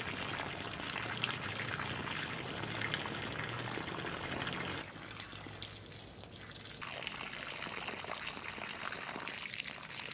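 Water from a garden hose pouring into a flooded soil furrow, a steady splashing rush. It drops quieter about halfway through and comes back up a couple of seconds later.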